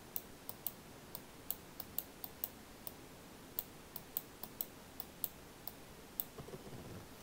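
Irregular series of about twenty faint, sharp clicks from clicking to handwrite pen strokes on a computer screen, over quiet room tone.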